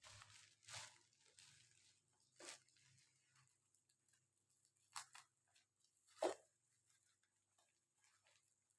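Faint handling noises of packaging being opened: soft rustling, then a few single light knocks, the loudest a little past the middle.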